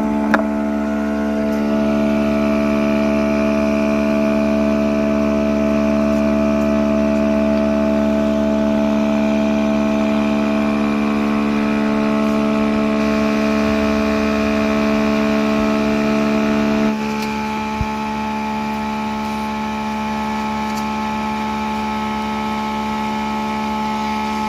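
Small DC electric motor, the homemade air cooler's fan, running with a steady hum. About 17 seconds in, the hum drops in level and its tone shifts slightly, with a click just after.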